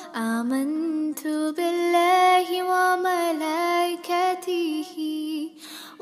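A high voice singing an Arabic naat in long held notes with small melodic turns, broken by short breaths, fading out near the end.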